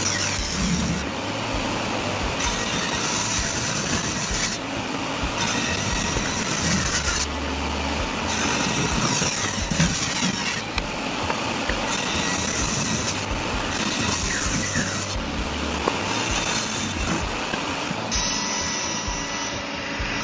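Table saw running and ripping strips from hardwood boards, a series of cuts whose sound changes abruptly every second or two.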